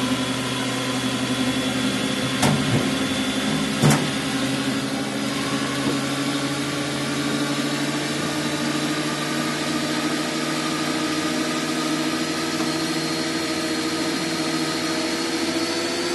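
Small electric motor of a power tool running steadily, its pitch slowly creeping up, with two short knocks about two and a half and four seconds in.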